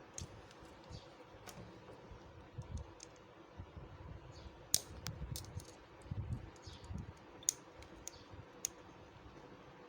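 Scattered light clicks and taps of a tester screwdriver working a small piece of piston helper ring into the gap between a bearing and the balancer shaft of an opened motorcycle engine, packing out the shaft's play. Irregular, faint, with a few louder clicks about five and seven and a half seconds in.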